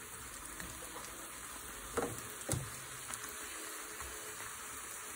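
Corn tortilla wedges frying in hot oil in a pan, a steady sizzle, with two sharp clicks about two seconds in.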